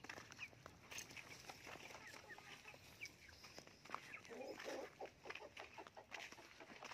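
Chicken clucking faintly.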